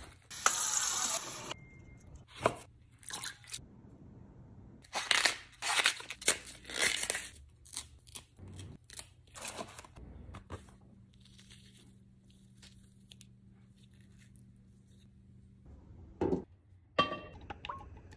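Tough outer leaves being snapped and torn off globe artichokes and the artichokes cut down with a chef's knife on a wooden cutting board: a string of short, sharp snaps and cuts, thickest between about two and eight seconds in, then sparser.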